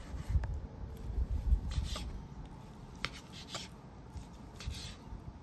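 Knife slicing through a sauce-glazed grilled chicken breast on a cutting board: soft scraping of the blade through the meat, with a few light clicks.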